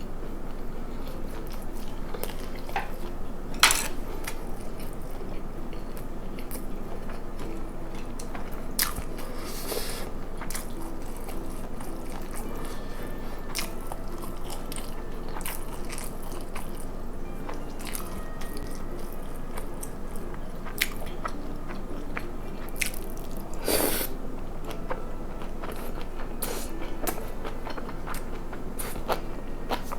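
A person chewing and biting food close to the microphone, with moist chewing noises and short sharp clicks now and then, one loud click a few seconds in and another about two-thirds of the way through.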